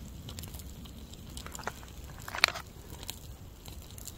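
Quiet eating sounds from a foil MRE pouch: scattered soft clicks and rustles of the utensil and pouch, with one sharper click about two and a half seconds in.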